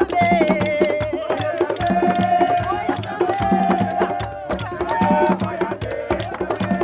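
Background music: long held melodic notes over a steady percussion beat.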